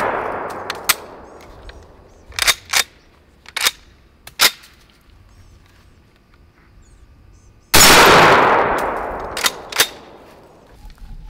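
M1 carbine shooting at steel targets: the report of a shot fired just before dies away, then a second loud shot about eight seconds in trails off over about two seconds. Short sharp cracks and clangs come in between, two close together a couple of seconds in, then single ones, and another pair near the end.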